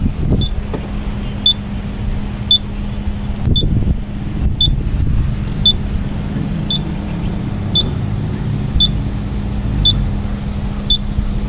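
Motorcycle engine idling steadily, with a short high beep repeating about once a second.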